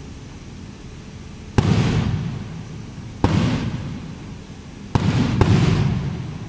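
Aerial firework shells bursting: four sharp bangs, each fading off in a rumble over about a second. The first comes about a second and a half in; the last two come close together near the end.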